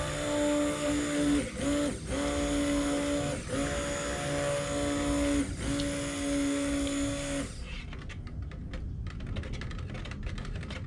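Handheld stick blender blending lye solution into warm oils and a whole egg for cold process soap. The motor hums steadily, cuts out briefly about four times with a dip in pitch, and stops a little past halfway. After that comes a run of quick light clicks and taps.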